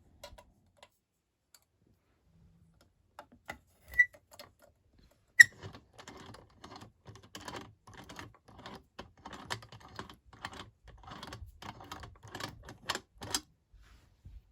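Rapid clicking and light clattering. Two sharp, ringing clicks come first, then a fast, irregular run of small clicks lasting about eight seconds before it stops.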